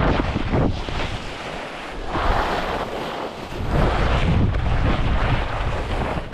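Wind buffeting a GoPro's microphone as a skier descends, over the hiss of skis sliding on snow. The buffeting eases for a couple of seconds in the middle, leaving the snow hiss more prominent.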